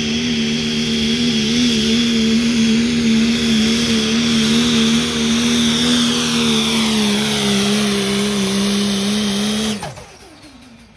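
Diesel Dodge Ram 2500 pickup engine held at full throttle while pulling a sled, its note steady and high-revving with a high whistle over it. The sound cuts off abruptly near the end.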